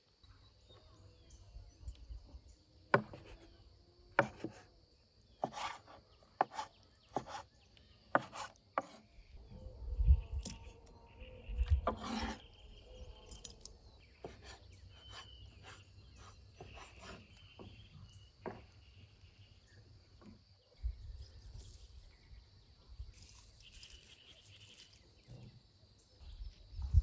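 Chef's knife chopping vegetables on a wooden cutting board: sharp, irregular knocks of the blade striking the wood, with a few low muffled bumps around the middle. A faint steady high buzz sits behind it.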